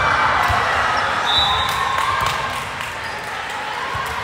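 Volleyball-gym crowd noise: many spectators' voices and cheers ringing in a large hall, loudest in the first second, with the thud of a ball bouncing on the court floor.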